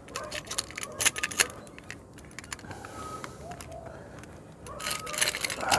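Metal tools clinking and rattling as a hand drill and its drill bits are handled and packed back into their case. Scattered sharp clicks and knocks run throughout, with louder rattling and rustling near the end.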